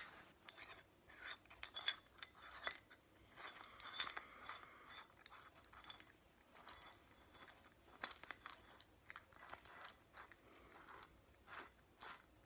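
Faint metallic clicks and scrapes as a Shadow Conspiracy bike multi-tool is handled and closed back up, its small steel keys and parts clinking. There is one sharp click right at the start.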